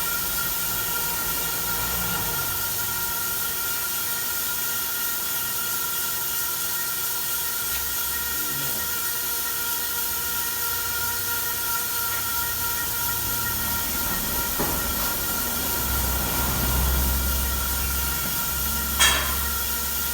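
Bread-slicing machine running steadily: a constant hiss with a fixed high whine, and a single sharp clack near the end.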